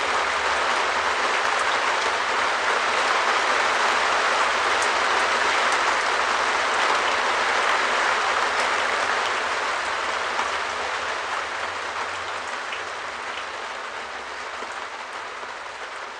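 Rain falling on a shed roof, a steady dense hiss of drops that fades out gradually over the last six seconds or so.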